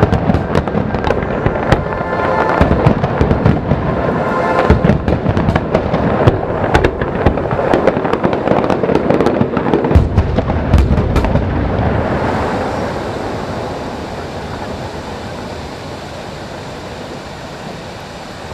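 Fireworks display: a dense run of bangs and crackling shell bursts that stops about twelve seconds in, leaving a fading, even rumble.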